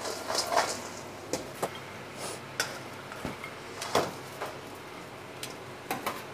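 Scattered light taps and clicks as chips are seasoned in a steel bowl and plated with tongs alongside salad, over the steady hum of a commercial kitchen.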